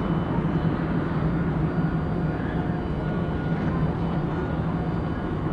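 Steady low drone of ship diesel engines from a passing naval patrol vessel and its harbour tug, with a constant low hum.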